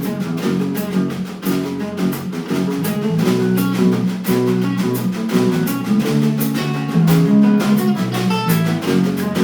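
Live band playing an instrumental passage of a punk song without vocals: guitar chords over steady, regular drum and cymbal hits.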